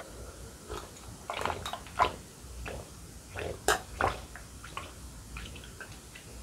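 A person gulping water from a glass, heard close up: a string of separate swallows with short gaps between them.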